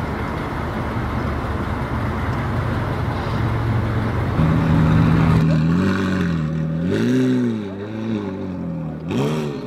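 A 1930s Ford sedan delivery street rod drives past with its engine running, growing louder as it passes. About halfway through, the engine gives way to background music.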